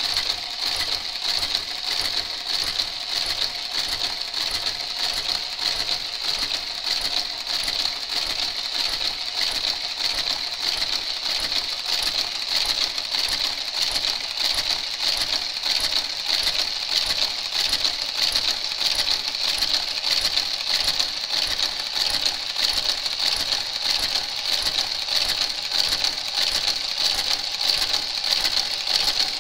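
A motorised garter carriage runs along a Brother 930 knitting machine's needle bed, casting off the stitches as it goes, like a linker. Its motor whirs steadily with an even run of ticks as it works each needle.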